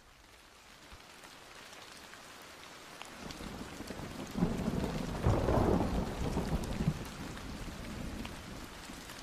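Rain falling, fading in from silence, with a rumble of thunder that swells about four seconds in and then dies away.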